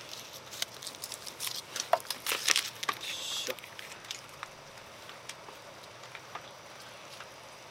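Metal clinks and rattles of an aluminium cooking pot and its lid being handled, with a short hiss about three seconds in. After that only faint scattered ticks.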